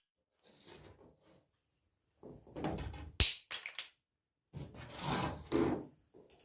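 Scraping and rubbing of small objects, broken by a few sharp clicks about halfway through. This is a pet parrot handling and dropping its small toys.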